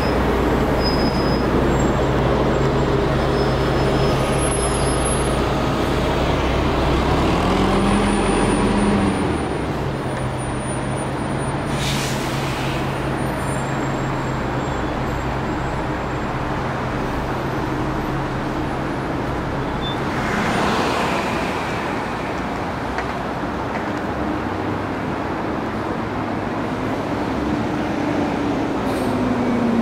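Seoul city bus engines and traffic. A bus running close by rises in pitch about eight seconds in as it pulls away, then drops to a lower drone. Short hisses of air come about twelve and twenty-one seconds in, and near the end another bus accelerates and passes.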